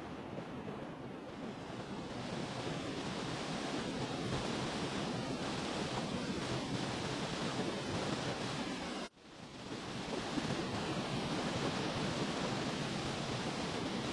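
Steady rush of falling water from a waterfall, broken by a sudden brief dropout about nine seconds in before the sound comes back.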